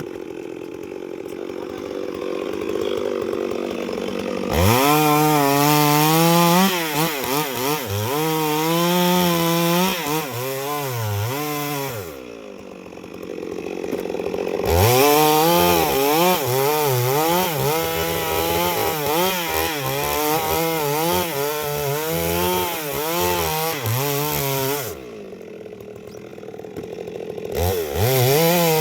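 Chainsaw cutting into a large tree, its engine pitch wavering up and down as the chain loads and frees in the wood. Three times it drops back to idle for a couple of seconds, at the start, in the middle and near the end, then revs up and cuts again.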